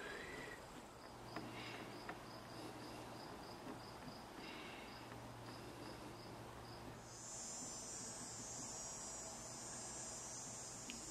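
Faint insect chirping: a regular high chirp about three times a second, joined about seven seconds in by a denser, higher buzzing trill, over a steady low hum.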